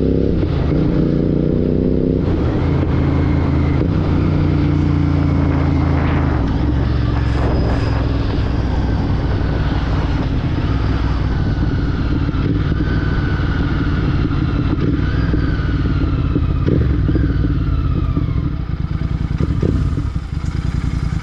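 Royal Enfield Continental GT 650's parallel-twin engine running through a Red Rooster Performance aftermarket exhaust while riding. The engine note climbs for about two seconds, drops in pitch as the rider shifts up a gear, then holds steady at cruising speed, easing briefly near the end.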